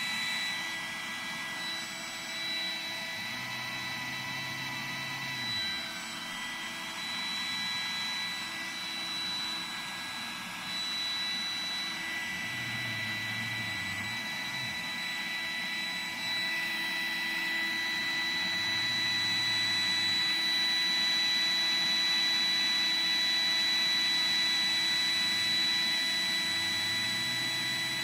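Roomba robot vacuum running on carpet: a steady high motor whine and rushing noise, with a lower hum that comes and goes four times. The robot is failing to travel across the carpet.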